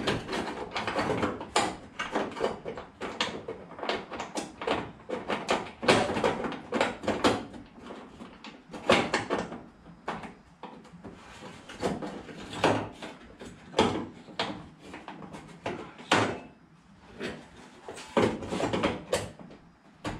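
A hand tool scraping and rubbing against the bare sheet metal of a Datsun 521 truck cab in many quick, irregular strokes, while surface rust is cleaned off.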